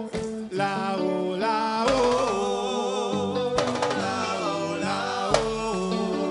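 Live Rastafarian nyabinghi reggae: a voice singing a drawn-out, wavering melody over Rasta hand drums and a bass line, with a sharp drum stroke about every second and a half.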